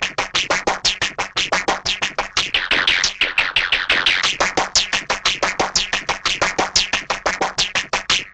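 Hanna-Barbera cartoon twang sound effect: a fast run of short twangs, about six a second, each sliding down in pitch, that cuts off suddenly near the end.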